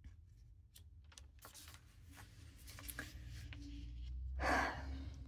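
Quiet handling sounds at a notebook: scattered faint clicks and taps, with a short soft hiss about four and a half seconds in.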